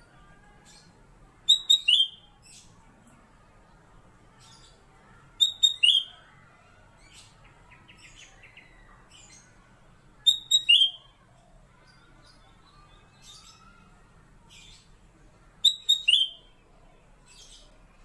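Caged kutilang emas (cucak kuning, a yellow bulbul) singing: four short, loud phrases about every four to five seconds, each a quick high note or two ending in a falling whistle, with faint chirps in between.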